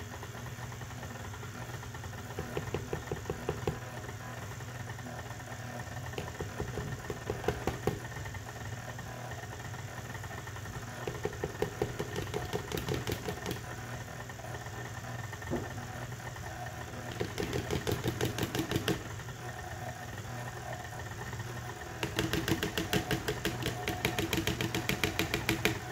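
Electric stand mixer running steadily, its flat beater working stiff cookie dough as flour is mixed in. Stretches of rapid, even knocking come and go several times, strongest near the end.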